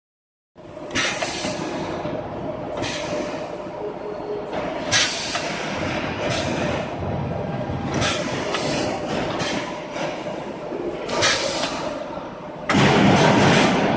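CNC rebar bending center running, its bending heads travelling along their rail with a steady mechanical rumble. Short hissing bursts come every second or two, and a louder, denser stretch of noise starts near the end.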